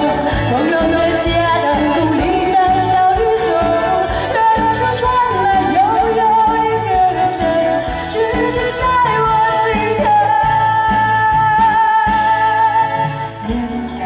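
Female singer performing a Chinese ballad live with a band through a stage PA, holding a long note about ten seconds in.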